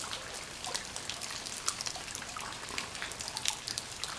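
Light rain and drips pattering irregularly on the creek's surface as scattered small ticks over a faint steady hiss.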